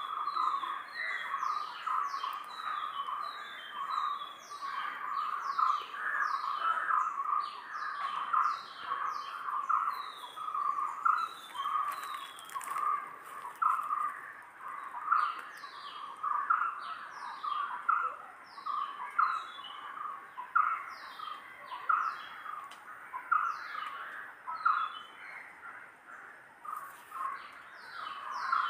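A chorus of several birds calling and singing without pause. Dense chirping sits at a middle pitch, over it high notes slide downward again and again, and short runs of quick high notes come and go.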